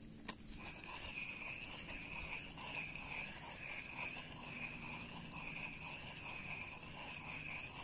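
Spinning reel: the bail snaps shut with a sharp click, then the handle is cranked steadily to retrieve the lure. This gives a faint whirring that wavers regularly about twice a second, with fine gear ticks beneath it.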